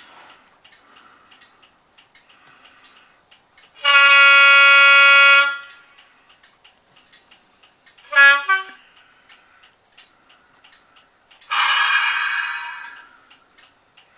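Class 37 diesel locomotive horn from a LokSound v5 sound decoder, played through the small speaker of an OO gauge model. There is one long steady blast about four seconds in, a short blast that drops in pitch about eight seconds in, and a rougher blast about twelve seconds in that fades away, all over faint regular ticking.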